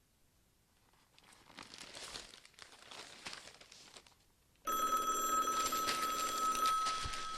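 Telephone ringing: a sudden loud, steady electronic ring tone that starts about two-thirds of the way in and is held for about three seconds, an incoming call.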